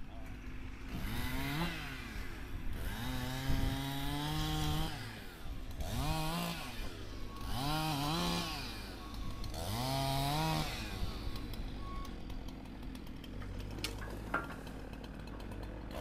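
Gasoline chainsaw cutting storm-damaged hackberry limbs, revving up and dropping back about five times. One longer cut is held between about three and five seconds in.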